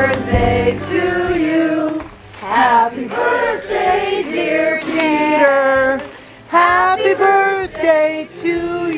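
A group of voices singing a song in held, melodic notes, with two brief pauses between phrases.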